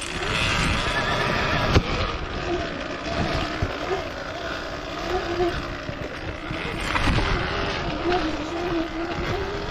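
Off-road motorcycle engine running at low revs, its pitch rising and falling with the throttle, with a few sharp knocks, loudest about two seconds in.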